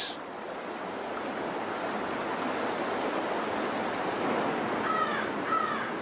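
Steady rush of stream water, with two short bird calls close together near the end.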